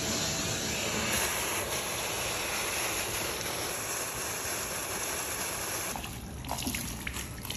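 Shop vac running, its hose sucking water out of a flooded car's floor: a steady rushing noise that starts abruptly and drops away about six seconds in.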